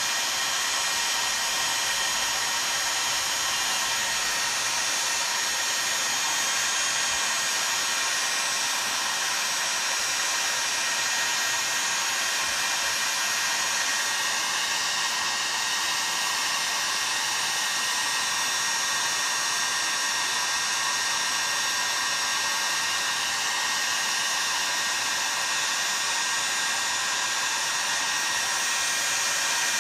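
Heat gun running steadily, its fan blowing air with a constant whine over the rushing. It is heating a chainsaw crankcase half so that it will slip over the crankshaft.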